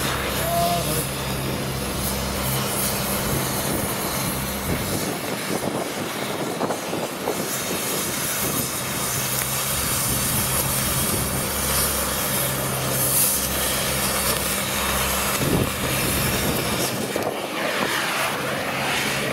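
Gas cutting torch hissing steadily as it cuts through a steel rail. A low engine hum runs underneath and drops away twice.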